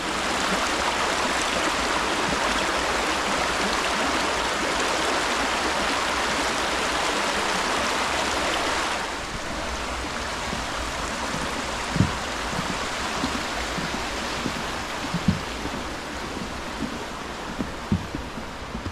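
A fast-flowing woodland river rushing steadily over rocks; the rush drops somewhat about halfway through.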